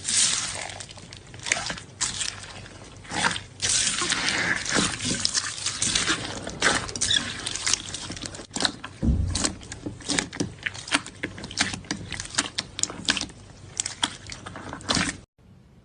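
Slime being squeezed and worked by hand: wet squishing with many sharp, irregular clicks and pops, cutting off suddenly near the end.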